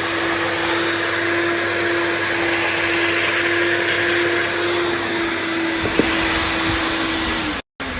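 A 90-litre, three-motor wet/dry vacuum cleaner running with a steady whine and suction hiss. There is a single knock about six seconds in. Near the end the sound drops out for a moment and then the motor pitch falls as it starts to wind down.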